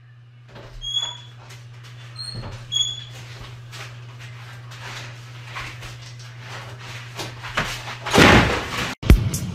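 A steady low hum with a few short, high squeaks in the first three seconds and scattered faint clicks, then a loud rush of noise about eight seconds in.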